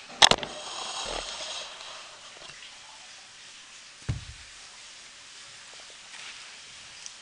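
A sharp double click just after the start, followed by a hiss lasting about a second and a half. About four seconds in, a dull thud as a dog drops an orange from its mouth onto the carpet.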